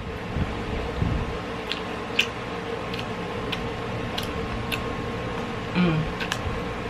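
A person chewing a fried chicken wing close to the microphone: short wet mouth clicks about every half second, over a steady background hum.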